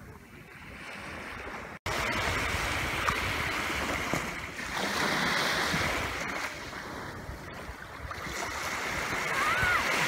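Small sea waves washing onto a sandy beach, the surf swelling and easing in turn. The sound cuts out for an instant about two seconds in and comes back louder. A few short rising-and-falling calls are heard near the end.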